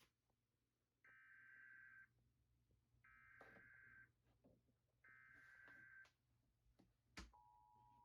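Emergency Alert System header: three one-second bursts of buzzy digital data tone, a second apart, encoding the alert. After a click near the end, the steady two-tone EAS attention signal begins.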